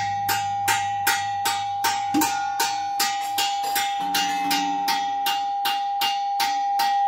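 Percussion struck in a steady pulse of a little under three hits a second, each hit ringing briefly. Under the hits a single steady feedback tone sustains from a mic-fed spring reverb unit feeding the room sound back into the room.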